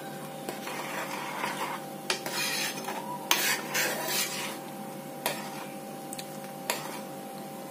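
A steel spoon stirring and scraping thick, simmering mango-powder chutney in a metal pan, with a few sharp clinks of the spoon against the pan. A faint steady hum runs underneath.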